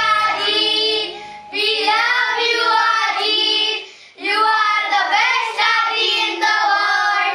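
A high-pitched voice singing a slow melody in three phrases with short breaths between them; a soft low instrumental accompaniment stops about a second in.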